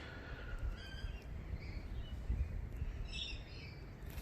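Birds chirping in short calls, about a second in and again about three seconds in, over a steady low background rumble.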